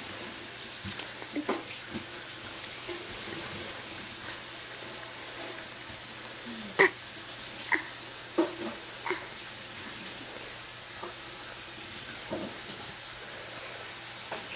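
A baby's short fake coughs, four in a row about a second apart halfway through, the first the loudest, over a steady background hiss.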